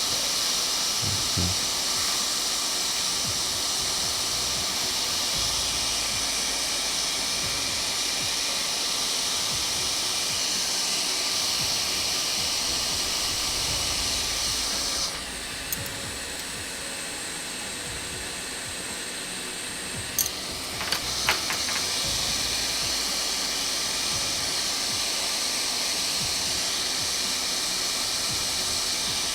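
Hot air rework station blowing with a steady hiss while a part put back on a laptop logic board is reflowed. The hiss goes quieter about halfway through for about five seconds, a few light clicks come near the two-thirds mark, and then the full hiss returns.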